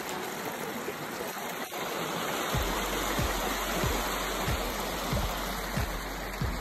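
A small forest stream rushing steadily over its bed. From about halfway in, soft low thumps come about every two-thirds of a second.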